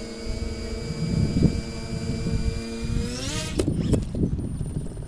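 Twin electric propeller motors of a tailsitter flying wing whine steadily, then wind down about three seconds in, followed by two knocks as the craft tips over onto the grass. The takeoff fails and flips for lack of throttle.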